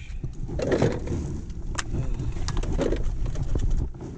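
Low rumbling wind and water noise on the microphone of a small open skiff rocking at sea, with a few sharp clicks and knocks from handling the fishing gear.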